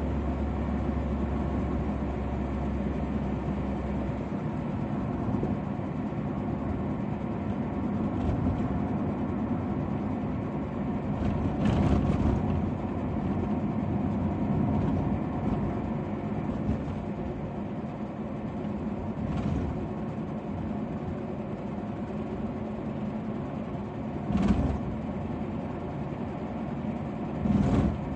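Steady engine and tyre noise heard from inside a moving car's cabin. A few short thumps come through, the loudest near the end.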